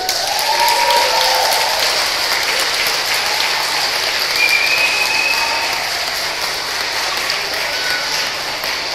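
A hall full of schoolchildren clapping steadily as a song finishes, with a few high voices calling out over the applause.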